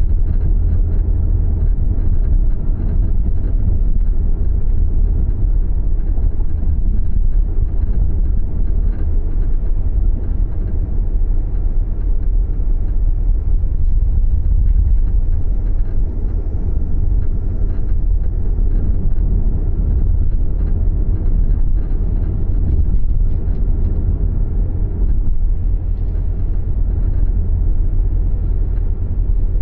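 Subaru Levorg being driven: a steady low rumble with road noise that does not change much, which the owner reports as an abnormal noise while driving.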